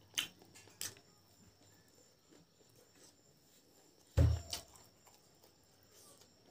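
Close-up eating sounds of a man eating rice and boiled pork by hand: two faint smacks in the first second, then quiet, and a louder short mouth or throat noise with a quickly falling pitch about four seconds in.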